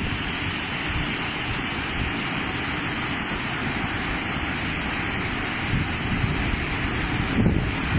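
Steady rushing water: an even, unbroken hiss of heavy rain or fast-flowing floodwater.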